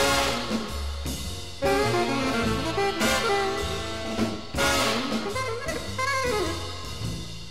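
Big band jazz recording: brass and saxophone sections playing over a drum kit, punctuated by a few loud ensemble accents with cymbal crashes.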